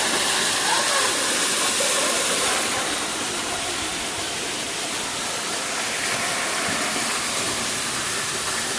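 Steady rushing of a waterfall, a continuous roar of falling water that eases slightly about two and a half seconds in.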